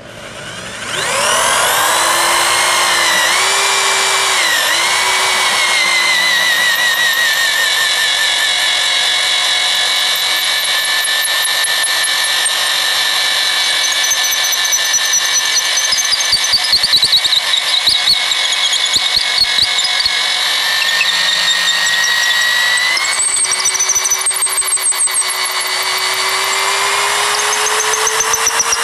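Heavy corded electric drill boring a large spiral auger bit for Azobé hardwood into a wooden plank. The motor whine starts about a second in, dips a few times early on, and climbs in pitch over the last few seconds.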